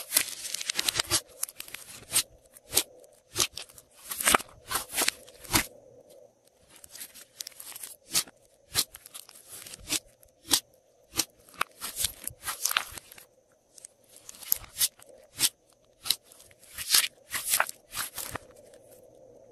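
Glossy slime being squished and stretched by hand, giving irregular sharp clicks and pops. A dense run of crackling comes right at the start.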